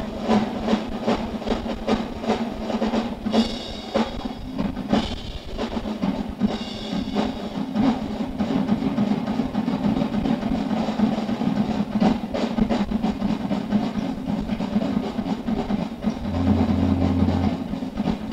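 Rock drum kit in a fast solo passage, with dense rolls across snare and toms, bass drum hits and cymbal crashes, over a steady low drone.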